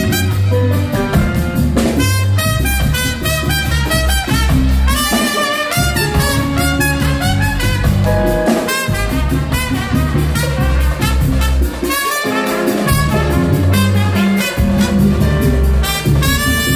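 Live band playing: a trumpet carries the melody over electric bass guitar and drum kit.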